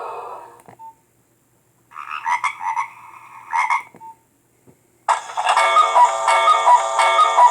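Nokia 1600 mobile phone playing its built-in ringtones through its small speaker: the end of one tone, a short beep, a short pulsing tone, another short beep, then a melodic ringtone with repeating notes starting about five seconds in.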